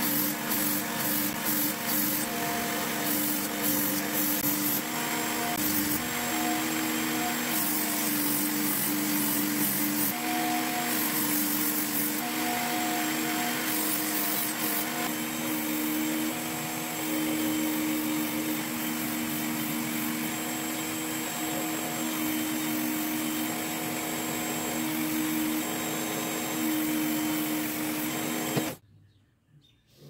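Work Sharp Knife and Tool Sharpener running, a steady motor hum with the abrasive belt grinding along the steel edge of a bayonet as the blade is drawn through the guide in repeated passes, sharpening a dull edge. The motor shuts off near the end.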